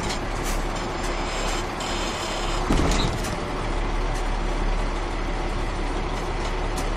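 1994 Ford L9000 truck's Caterpillar 3406 inline-six turbodiesel running steadily as the truck drives along. About three seconds in there is a brief louder thump.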